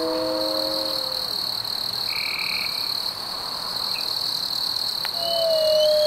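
Several wolves howling together, long overlapping howls that glide a little in pitch, fading about a second in and starting again near the end, over a steady high-pitched chorus of calling night creatures.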